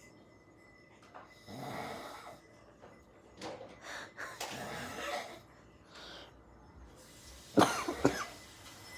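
A person snoring in sleep, with several slow separate snoring breaths, then two loud sharp cough-like bursts in quick succession near the end.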